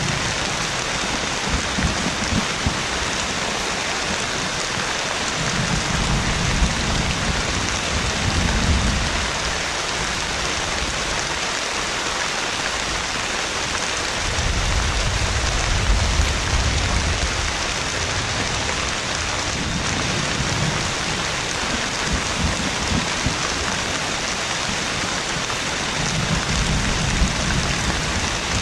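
Heavy rain pouring steadily as a dense hiss, with deep rolls of thunder rumbling several times: about a fifth of the way in, around the middle, and again near the end.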